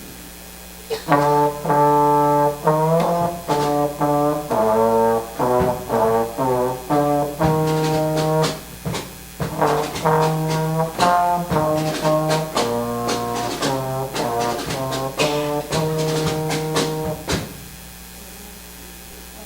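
Solo trombone playing a melody, unaccompanied: a phrase of separate held and shorter notes that starts about a second in and stops a couple of seconds before the end.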